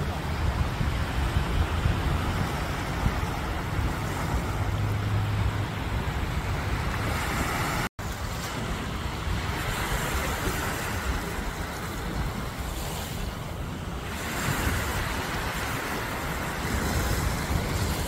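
Small sea waves washing in at the shoreline, a continuous surf noise that swells and eases, with a low wind rumble on the microphone. The sound cuts out for an instant about eight seconds in.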